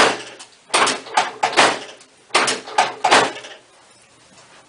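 Sharp cracks and knocks from a chiropractic spinal adjustment, about seven in quick succession over the first three and a half seconds, the first the loudest.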